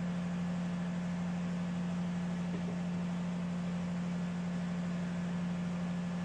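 A steady low machine hum with an even hiss behind it, holding at one pitch and level throughout.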